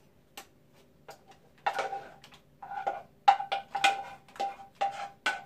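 A spatula knocking and scraping against the rim and sides of a saucepan while the last of a thick batter is scraped out. It makes about a dozen irregular knocks, each with a short metallic ring, coming faster in the second half.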